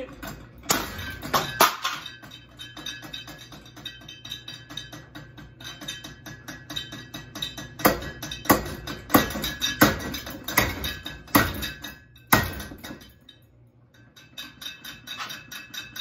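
Claw hammer striking a ceiling fan's blade, metal blade bracket and motor housing: repeated sharp clanks with a lingering metallic ring, and fast light clattering between the blows. A run of about seven heavy strikes comes in the second half, then a short lull and more light clicking near the end.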